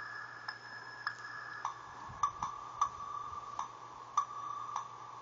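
Instrumental beat: a held high synth note that drops to a lower note about a second and a half in, over a regular click about every 0.6 s.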